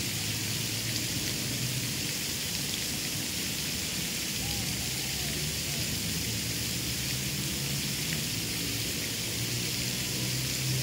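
Steady, even outdoor background hiss, strongest in the high range, with a low hum underneath and a few faint short chirps in the middle and again near the end.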